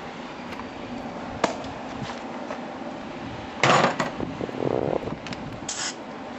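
Metal tools and parts clanking and scraping, with one loud clatter about halfway through that briefly rings on, over a steady mechanical hum.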